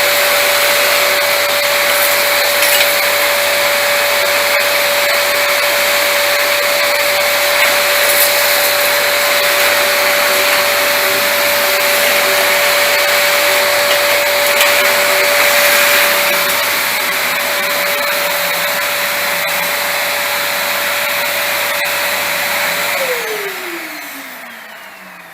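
Vacuum cleaner running steadily with its motor whine and rushing airflow, then switched off about 23 seconds in, the motor winding down in a falling whine.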